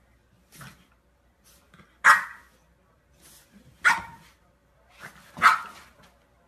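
A dog barking: three short, sharp barks about two seconds, then a second and a half apart, with fainter short sounds between them.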